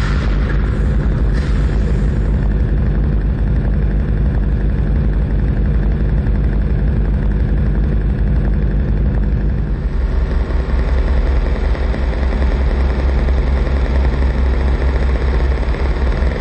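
Loud electronic drone and noise from a live modular-synthesiser noise set: a heavy low bass hum under a hissing, textured layer. There is a brief hiss near the start, and about ten seconds in the bass drops lower and the texture shifts.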